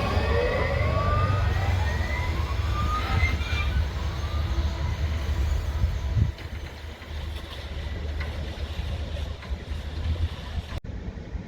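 Electric train moving on the station tracks: a heavy low rumble with several rising whining tones in the first few seconds. The rumble drops off about six seconds in.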